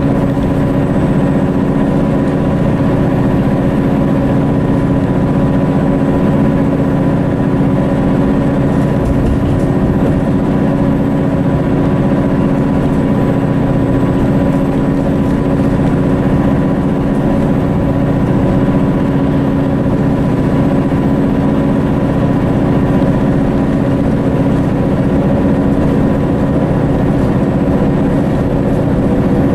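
Mercedes-Benz O530 Citaro bus's Daimler OM906hLA six-cylinder diesel engine running at a steady, unchanging speed, heard from inside the passenger saloon. It is a constant drone with a few steady whining tones over it.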